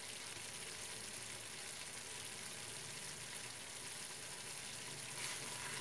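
Höşmerim mixture of curd cheese, semolina and butter sizzling steadily in a frying pan over a gas burner as it cooks until bubbles come up.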